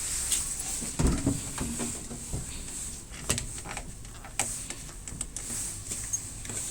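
Irregular knocks and clunks as the compact two-door refrigerator is handled, the loudest about a second in, with a few lighter ones after it.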